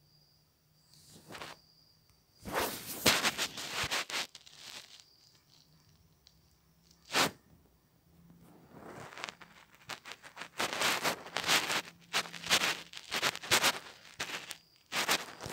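Handling noise: irregular bursts of rustling and scraping close to the microphone, with a single sharp click about seven seconds in.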